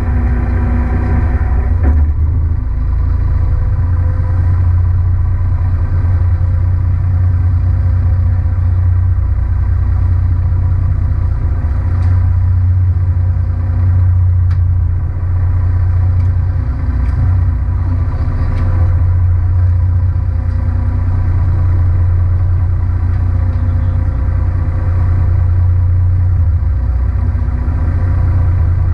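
A fishing boat's engine running steadily, a low drone, with a few light clicks.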